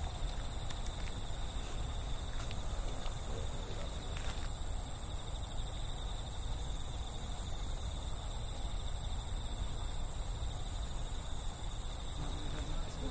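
Night insects trilling steadily, a high, even chirring, over a constant low rumble.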